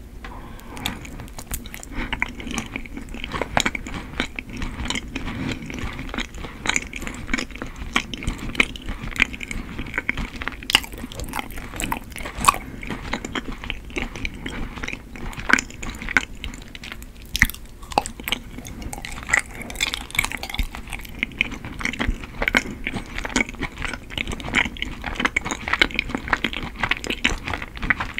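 Close-miked bites and chewing of soft, chewy Korean rice cake (tteok), with many small mouth clicks throughout.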